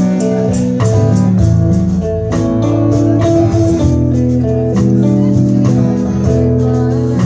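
Live band playing an instrumental passage through a PA: amplified acoustic and electric guitars, bass and a drum kit keeping a steady beat.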